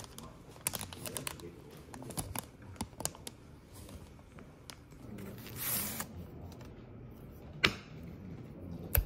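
Clear plastic wrapper crinkling and rustling as a brownie is torn open and handled, with a couple of sharp clicks near the end.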